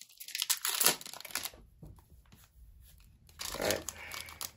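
Foil wrapper of a trading-card pack being torn open and crinkled, in a run of crackly rustles for the first second and a half. After a short lull the wrapper crinkles again as the stack of cards is pulled out near the end.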